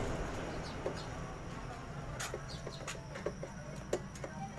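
Scattered light clicks and taps of parts being handled and fitted as a scooter's body covers are put back on, over a low steady hum.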